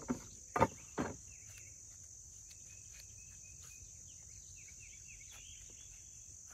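Steady high-pitched chorus of crickets or other insects, with three sharp knocks in the first second and faint short chirps after.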